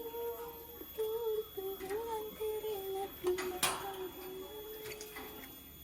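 A person humming a tune in short held notes that step up and down, with one sharp click about three and a half seconds in.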